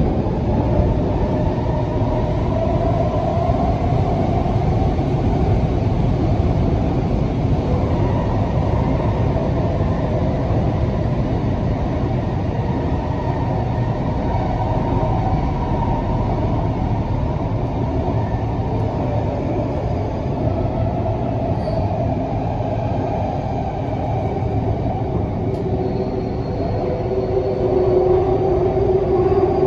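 SkyTrain car running through an underground tunnel, heard from inside the car: a steady rumble of wheels on rail with a faint humming tone over it. Near the end the tone strengthens and the sound grows a little louder.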